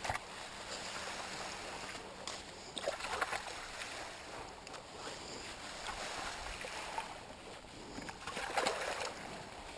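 Small spring-fed stream trickling over rocks, with a few brief splashes about three seconds in and again near the end, as hands work in the water clearing leaves.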